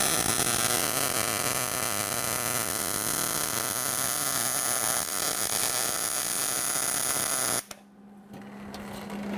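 MIG welding arc on steel plate, running steadily for about seven and a half seconds as the new mower-deck shroud is welded in place, then cutting off suddenly. A low steady hum remains after the arc stops.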